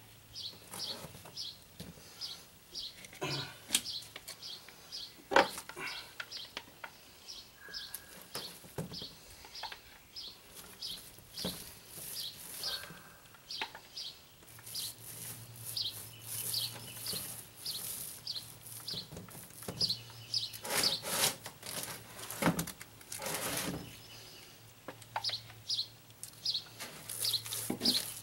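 A bird chirping over and over, short high chirps about two to three a second. Scattered knocks and scrapes of hand work with a resin cup and roller are heard alongside, the loudest a few seconds in and again past the middle.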